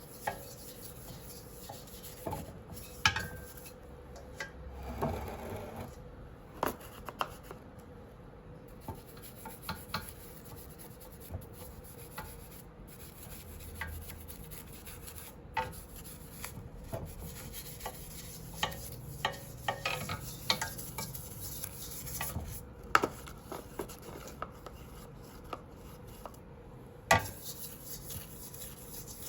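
Hand scrubbing and rubbing on a brass samovar's metal, with scattered light clinks and knocks against the metal.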